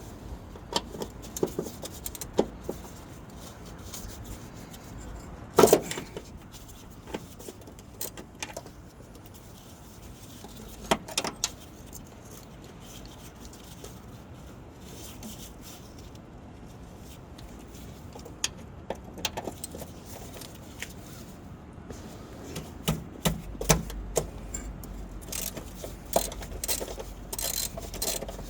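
Scattered metal clinks and knocks of hand tools, sockets and suspension hardware being handled, loudest about six seconds in and again about eleven seconds in, with a busier run of clinks near the end.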